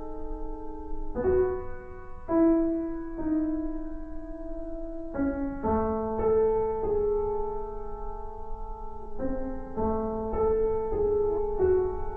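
Piano playing slow, sustained chords in an instrumental break of a pop ballad, with no vocals; the chords change every second or few.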